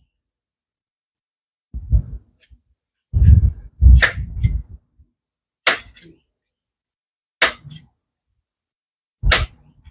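Air rifle being worked by hand, likely pumped: four sharp clacks about a second and a half to two seconds apart, with duller thumps before them.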